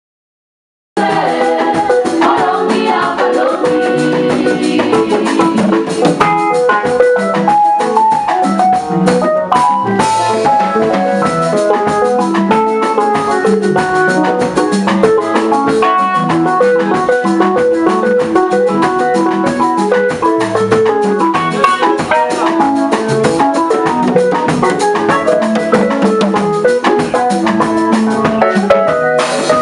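Gospel choir singing with drums and instrumental backing, cutting in suddenly about a second in.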